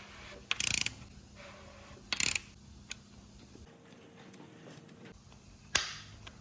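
Hand tools working on engine parts: two short bursts of rapid, ratchet-like clicking, then a single sharp clack near the end.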